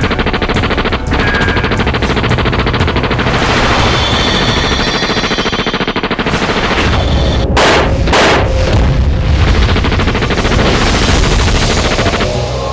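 Sustained rapid machine-gun fire, many shots a second without a break, with two louder blasts a little past the middle.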